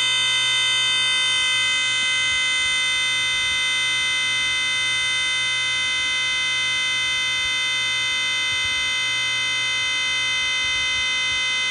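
Computer speakers stuck on one steady, unchanging buzz after a Windows blue-screen crash: the sound card keeps looping the last fragment of the music that was playing when the system froze.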